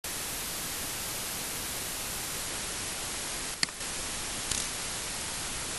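Steady hiss from an open recording microphone, with one sharp click about three and a half seconds in and a softer brief rustle about a second later.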